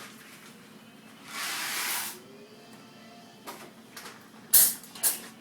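A hissing scrape lasting about a second, then a few sharp clinks and knocks of dishes being handled while a dishwasher is unloaded; the loudest knock comes about four and a half seconds in.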